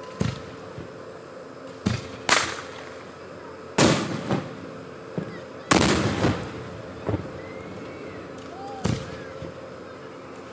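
Aerial firework shells bursting overhead: a string of about nine sharp bangs at irregular intervals, the three loudest falling in the middle of the run. Each bang dies away over a fraction of a second.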